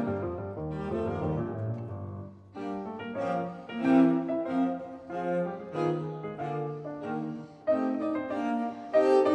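Instrumental background music, bowed strings and piano, playing a slow melody of separate notes.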